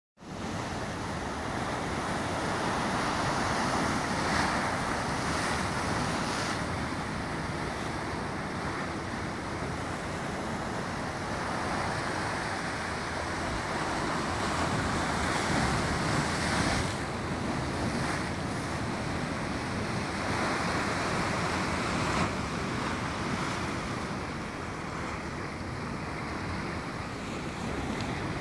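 Sea surf breaking and washing against the rocks at the foot of a cliff: a steady rush that slowly swells and eases, with some wind on the microphone.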